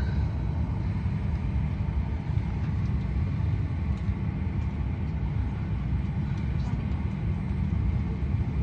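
Steady low rumble of a parked airliner heard from inside its cabin, with a few faint clicks.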